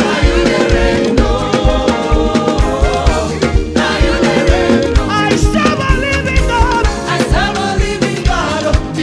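Upbeat African gospel praise music with a steady, driving beat, played loud.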